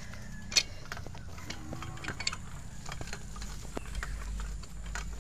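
Bicycle rattling and clicking as it rolls over bumpy grass, with a sharp click about half a second in. A low wind rumble on the microphone builds in the second half.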